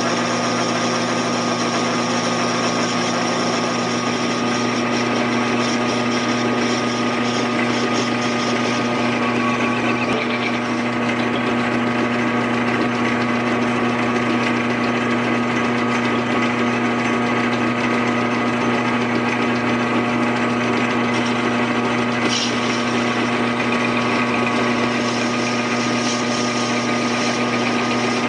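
Metal lathe running under a cut: the steady hum and whine of the motor and belt-and-countershaft drive, with the tool turning a groove into the spinning workpiece.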